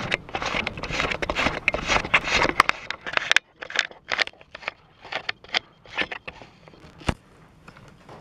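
Rustling and scraping, thick for about the first three seconds, then a run of separate clicks and taps with quieter gaps between them.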